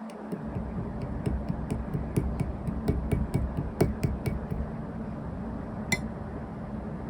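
Yellow slime being squeezed and pressed by hand, giving a quick run of sharp clicking pops, about four or five a second, then one louder pop near the end, over a steady low hum.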